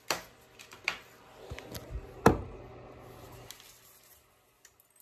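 Handling knocks and bumps as a phone is set in place, the loudest a little past two seconds in, with paper rustling as a card envelope is handled.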